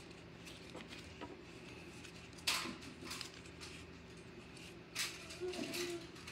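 Trading cards being flipped through by hand: a few short card slides and snaps, the loudest about two and a half seconds in and another near five seconds, over a low steady hum.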